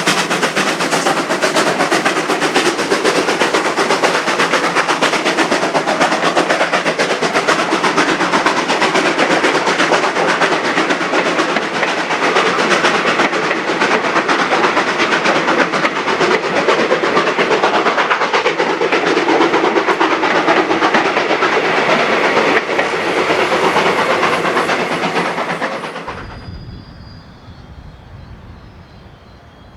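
Steam-hauled passenger train passing, a loud steady rush of wheel-on-rail noise with rapid clicking. It drops away suddenly near the end to a faint low rumble.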